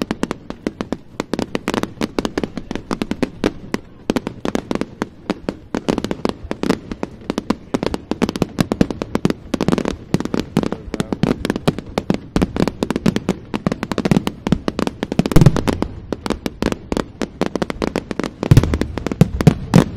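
Fireworks display in full barrage: a dense, unbroken run of sharp bangs, several a second. The heaviest, deepest booms come about fifteen seconds in and again in a cluster near the end.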